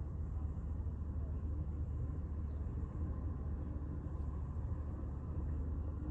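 Steady low rumble of street traffic, cars passing on the road.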